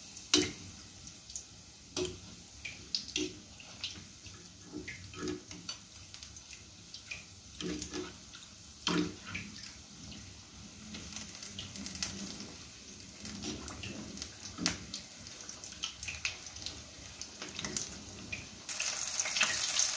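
Breaded cheese chicken drumstick deep-frying in hot oil in an iron kadai on a raised flame: a steady sizzle with scattered pops and crackles as a slotted spoon ladles oil over it. The sizzle gets louder just before the end.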